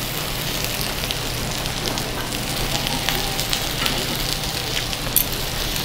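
Thin-sliced pork belly and kimchi sizzling on a hot cast-iron lid griddle, a steady hiss with fat crackling and spitting. A sharp click sounds about five seconds in.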